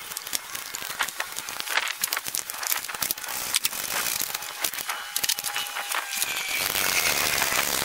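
Irregular metal clicks and knocks of a wrench working the new alternator's mounting bolts and of hands handling the alternator, with louder rustling noise near the end.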